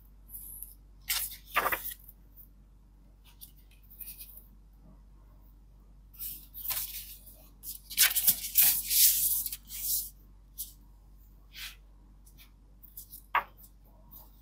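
Paper rustling as a hardcover book and its paper packaging are handled and its pages turned, in short bursts with a longer stretch of rustling from about six to ten seconds in, and a few sharp taps near the end.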